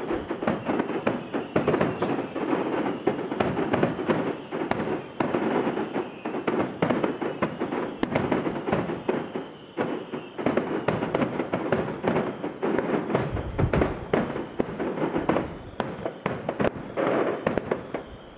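Fireworks display heard from about a mile away: a dense, continuous barrage of bangs and crackle, with one deeper boom about three-quarters of the way through, dying away at the very end.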